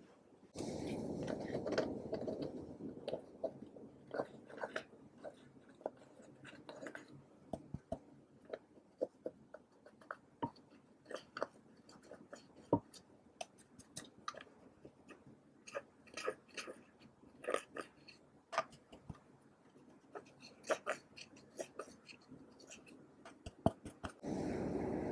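A small spatula scraping and digging pressed eyeshadow out of a palette's pans, giving an irregular run of crisp clicks and scratches. A louder rush of noise comes in about half a second in and fades over a few seconds, and another steady rush begins just before the end.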